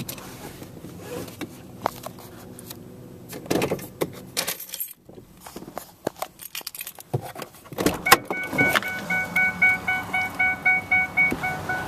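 Keys jangling and clicks and knocks of someone getting into a car, then, about eight seconds in, the car's warning chime starts pinging rapidly, about three times a second.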